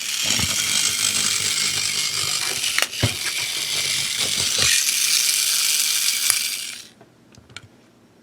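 Battery-powered toy train motor and plastic gearbox running with a loud, rattling whir. It stops about seven seconds in, followed by a few faint clicks.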